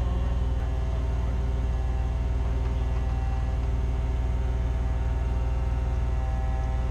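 Caterpillar forklift's engine running steadily, a low, even hum with no change in speed.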